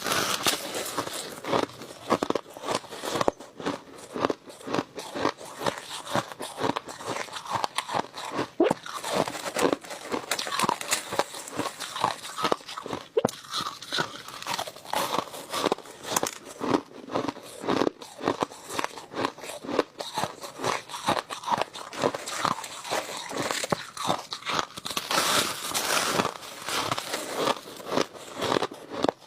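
Close-miked chewing and biting of crushed ice: a steady run of rapid, crisp crunches as the ice is bitten and ground between the teeth.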